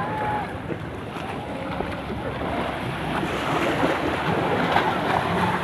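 Sea surf washing steadily onto the beach, with wind buffeting the microphone.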